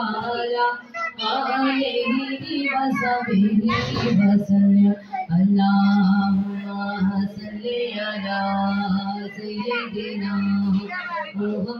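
A voice singing over background music, with a long held low note underneath; a brief knock about four seconds in.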